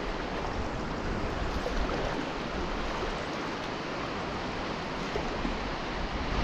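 Steady rush of river current flowing around a canoe moving through riffled water.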